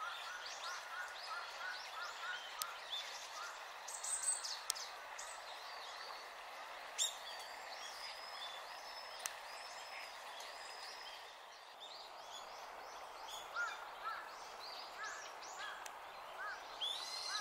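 Small songbirds calling in the trees, including Japanese white-eyes: many short chirping calls, some thin and high, others lower and repeated in quick runs. Steady background hiss, with a few sharp clicks.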